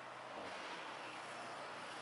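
Faint, steady background hiss with a low hum: room ambience.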